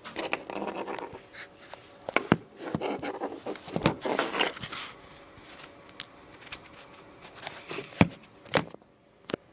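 LEGO bricks being handled and pressed together: several sharp plastic clicks scattered between stretches of rustling and scraping.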